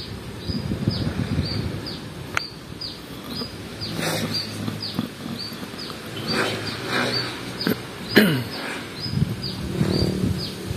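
Outdoor rural ambience: a short, high, falling chirp from a small animal repeats about twice a second over a low background murmur, with a sharp click about two seconds in.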